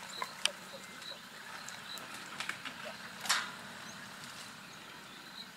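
African wild dogs feeding on a carcass: scattered short clicks and crunches of chewing and tearing at meat and bone, with one louder rough tearing sound about three seconds in. Faint high chirps repeat over a steady background hiss.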